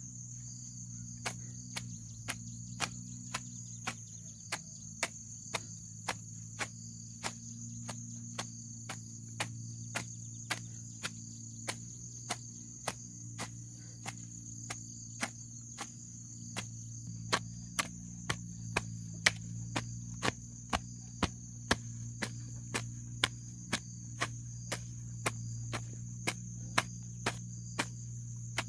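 Metal garden hoe chopping into grass and soil in quick strokes, about two strikes a second, louder in the second half. Under it runs a steady, high-pitched insect chorus.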